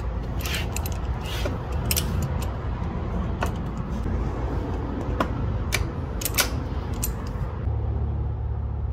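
Metal hand tool being handled, with scattered sharp clicks and clinks over a steady low rumble. The clicks stop about seven and a half seconds in, leaving the rumble.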